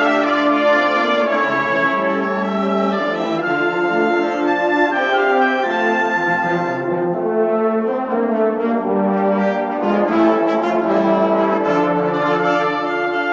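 Brass band playing a slow Christian hymn in held chords, the notes changing about once a second.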